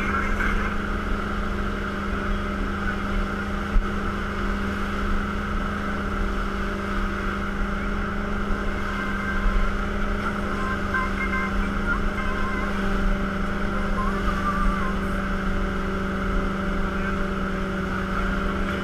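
Wake boat's inboard engine running steadily behind the towed rider, an unchanging drone, mixed with the rush of the churning wake and wind on the microphone.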